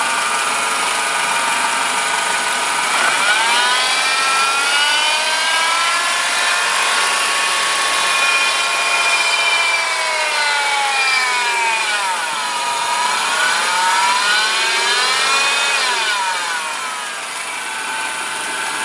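Mercedes-Benz M102 four-cylinder petrol engine running and revved up and down, with a buzzing whine whose pitch climbs and falls with engine speed. The whine comes from a failing belt tensioner pulley, the cause that replacing the pulley confirmed.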